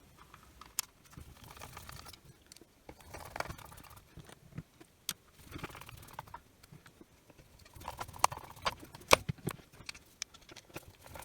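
Irregular clicks, taps and light rattles of small screws and a screwdriver being worked into a circular saw's motor housing, with the odd sharper knock, busiest near the end.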